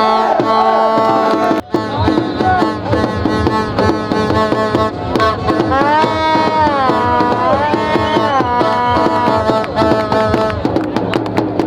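Music: a fast, busy percussion rhythm under a sustained melody whose pitch bends up and down around the middle. It cuts out for an instant about two seconds in.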